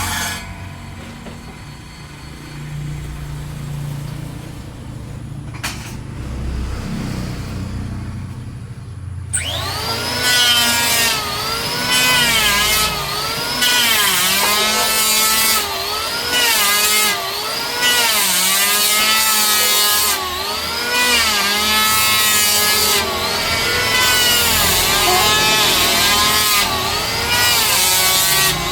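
Power woodworking tool cutting wood. A low rumble gives way, about nine seconds in, to the tool's loud motor and cutting hiss. The motor's pitch dips and recovers again and again as each pass loads it.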